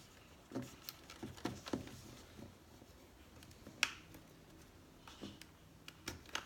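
Small plastic clicks and rattles of an electrical connector being worked loose from a car door's power lock switch panel, with one sharp click about four seconds in.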